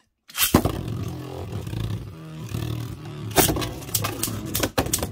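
Two Beyblade Burst tops, Wonder Valtryek on its free-spinning Volcanic driver and Cho-Z Achilles, launched into a plastic stadium and spinning with a steady whir, with sharp plastic clacks as they collide, several in quick succession near the end.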